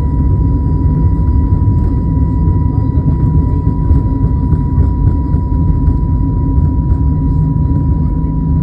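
Airbus A320neo jet engines running: a loud, steady low rumble with a constant high whine over it.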